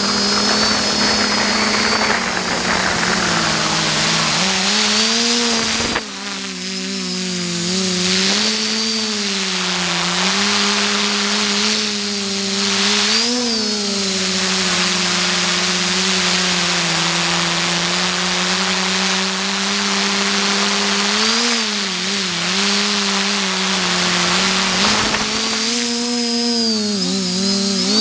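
XJ470 hexacopter's electric motors and propellers buzzing in flight, heard from the onboard camera. The pitch wavers and swells briefly as the throttle changes, over a steady high whine and a rush of air.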